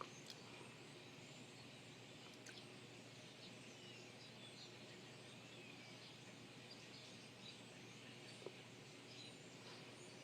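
Faint, scattered bird chirps over a steady background hiss, with a few soft clicks.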